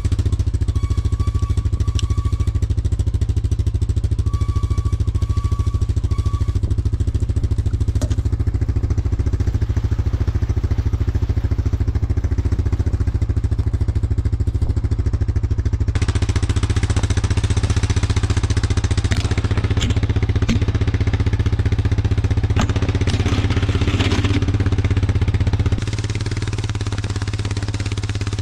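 Four-wheeler (ATV) engine idling steadily with a low, even hum, with a few light clicks and two faint high whines in the first several seconds. The engine note drops slightly in level near the end.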